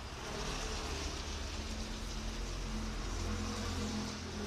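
Steady rain falling, an even hiss of drops, with a low steady hum underneath.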